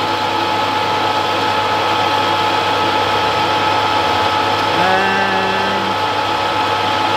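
Warco WM180 mini lathe running steadily, with a constant motor and gear whine, while an insert turning tool takes a 1 mm depth of cut along a pin.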